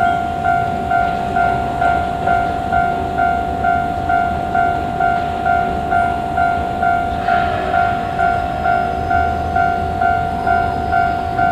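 Japanese level-crossing warning bell ringing in a steady electronic two-tone 'kan-kan', about twice a second, over the low rumble of a train. A brief rush of noise comes about seven seconds in.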